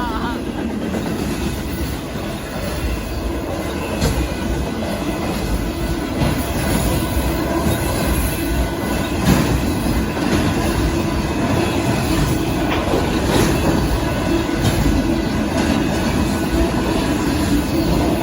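CSX freight train of autorack cars rolling past: a steady rumble, with irregular clacks as the wheels go over the rail joints.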